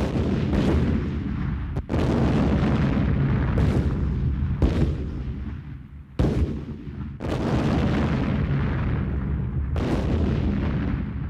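Heavy artillery fire: a run of deep booms, about eight in eleven seconds, each followed by a long rolling rumble, so that they run together into a continuous low rumble.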